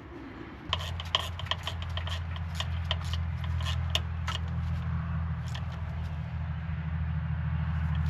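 Metal parts clinking and scraping as small hardware is handled and fitted on a truck's wheel hub assembly, a quick run of irregular clicks over the first half. Under it a steady low machine hum starts about a second in and keeps going.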